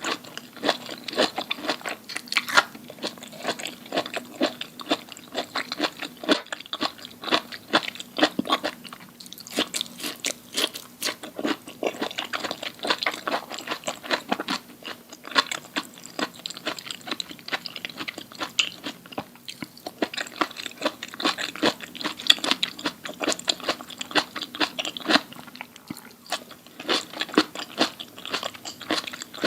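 Close-miked eating of crunchy food: a continuous run of crisp bites and crunches with chewing, many sharp cracks in quick succession.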